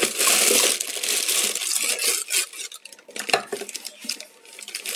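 Rummaging in a cluttered drawer: paper and plastic bags rustle and crinkle for about two seconds, then small jars and plastic bottles knock and clink against each other as they are picked out.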